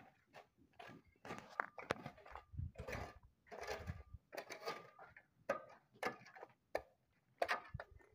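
Short irregular scrapes and knocks, one to two a second, of hand work in dry, stony ground and rubble.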